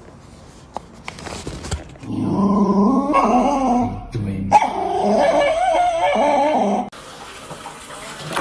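A dog vocalizing in two long, wavering calls of about two seconds each, starting about two seconds in; the second cuts off suddenly.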